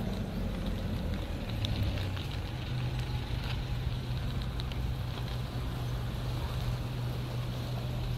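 A steady low engine hum over outdoor background noise, its pitch shifting a couple of times in the first few seconds and then holding.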